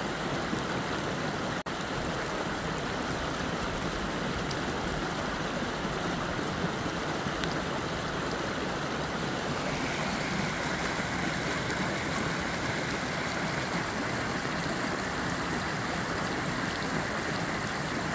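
A rocky woodland brook running over and between stones: a steady rush of water, with a brief break about a second and a half in. About ten seconds in the rush turns brighter and hissier.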